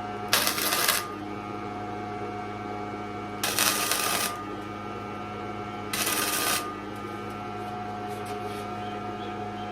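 Gasless flux-core MIG welder laying three short tack welds. Each is a crackling burst of about half a second, a couple of seconds apart, over a steady electrical hum.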